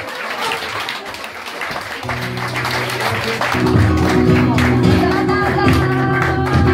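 Applause and crowd noise, then a flamenco guitar starts playing about two seconds in and grows fuller and louder from about three and a half seconds, with hand clapping going on over it.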